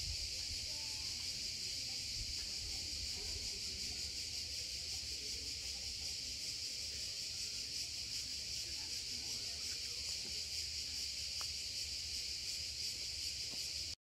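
Cicadas singing in a continuous, steady high buzz with a fine rapid pulse.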